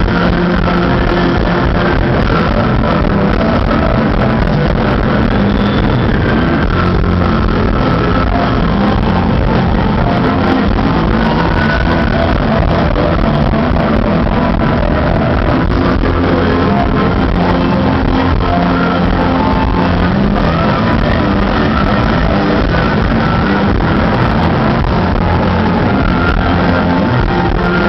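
Rock band playing live: electric guitars and drums, loud and steady throughout.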